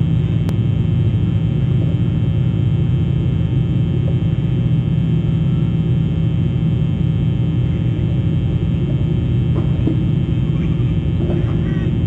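Steady low rumble and electrical hum from an outdoor webcam's microphone, with one sharp click about half a second in and a few faint bird chirps near the end.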